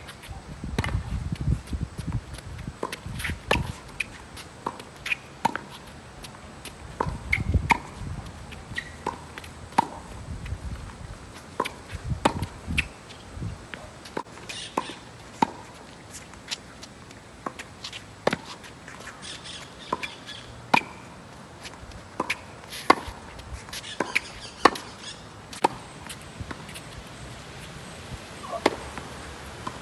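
Tennis racket hitting a ball again and again: sharp, short pops about once a second, some with a brief ringing ping from the strings.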